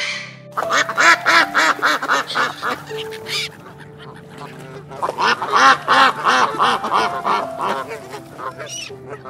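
Ducks or geese calling in two fast runs of short calls, about four or five a second, with a break of about a second and a half between them, over quiet background music.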